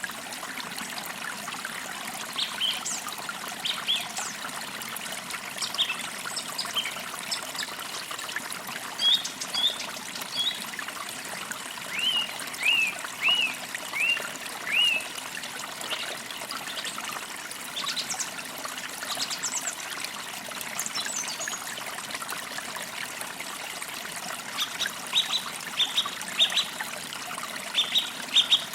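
Small forest creek trickling and babbling steadily, with songbirds calling over it: scattered short high notes, a run of about half a dozen downslurred notes around the middle, and a quicker series of falling notes near the end.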